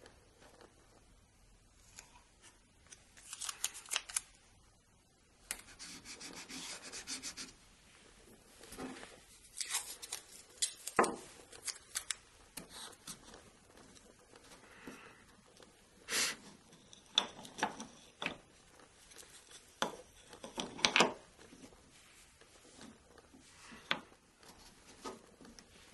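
Hands handling thin wooden strips and blue painter's tape on a wooden workbench: scattered rubbing, tape being pulled and torn, and light knocks of the strips set down on the bench.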